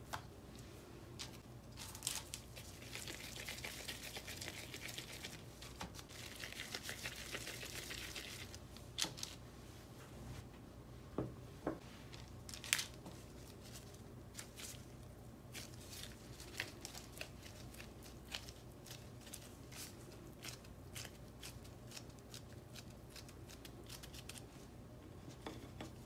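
Gloved hands handling thick cookie dough on parchment paper: soft rustling and crinkling, strongest in two stretches of a few seconds near the start, with scattered light taps and clicks. A sharp knock near the end.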